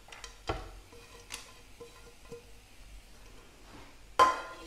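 Wooden spatula knocking and scraping in a steel frying pan as thick halwa is stirred. There are a few soft knocks, then one louder ringing clink of the pan near the end.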